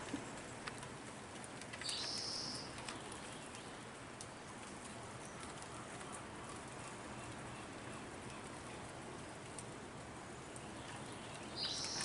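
Quiet outdoor backyard ambience: a steady faint hiss with scattered soft ticks, and two short high-pitched chirps, one about two seconds in and one near the end.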